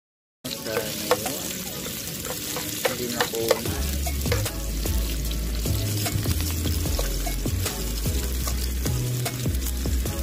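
Hot oil sizzling and crackling as sliced garlic and onions fry in a pan, with metal tongs stirring and tapping against the pan. Low background music bass comes in about four seconds in.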